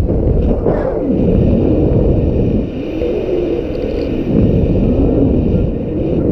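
Strong gusty wind buffeting the microphone: a loud, steady low rumble.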